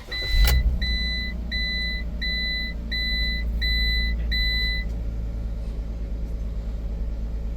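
A 2018 Ram Promaster's 3.6-litre gas V6 is started: it catches almost at once and settles into a steady idle. Over it the dashboard warning chime beeps repeatedly, about once every 0.7 s, and stops about five seconds in.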